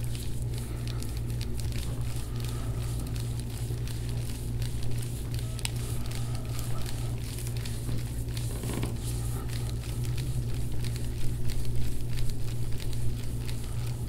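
Deep-tissue massage working the muscles around a shoulder blade: scattered small clicks and crackles from the pressed skin and tissue, over a steady low hum.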